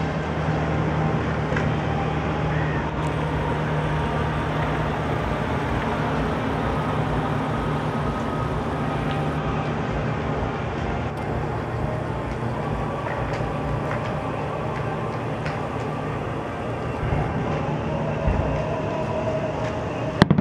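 Fireworks display heard from afar: a continuous rumble of overlapping bursts with crackling, over a steady low hum, and a couple of sharper bangs near the end.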